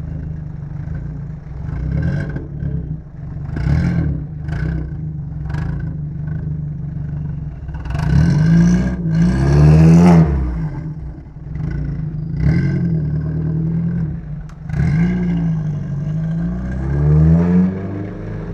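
Audi TT engine idling and being revved: several quick blips of the throttle, then two longer revs that climb and fall back, the second near the end.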